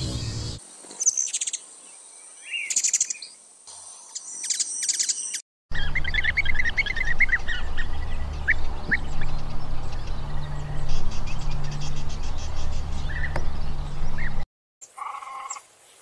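Small birds chirping and twittering in quick high calls across three short clips, broken by two brief cuts to silence. A steady low rumble runs under the middle clip.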